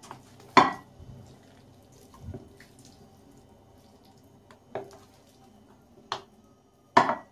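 A wooden spoon scraping sauce-coated noodles out of an enamelled pan into a glass baking dish, with wet slops as they drop. There are about five sharp knocks of spoon against pan and dish; the loudest come about half a second in and near the end.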